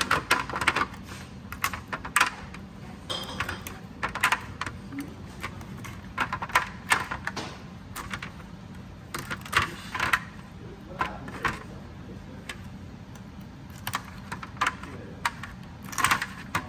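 A serrated table knife prying and scraping at a cooked blue crab's shell, with the shell cracking: irregular sharp clicks and cracks in clusters.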